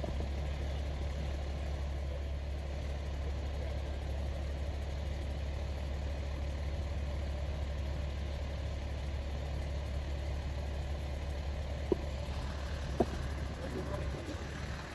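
Fire engines' diesel engines idling nearby, a steady low rumble, with two faint clicks near the end.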